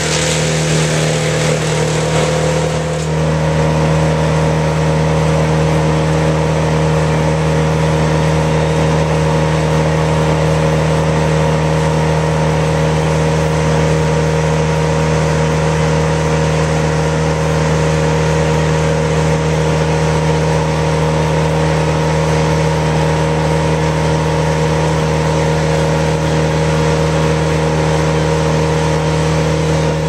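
Trailer-mounted brush chipper running at a steady pitch. For the first few seconds a harsher rushing noise rides on top as branches are fed through, then only the steady running engine remains.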